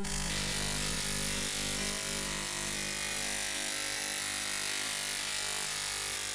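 Electroacoustic music for violin and tape: a steady buzzing, hissing noise texture over a low, steady hum, with no clear melody.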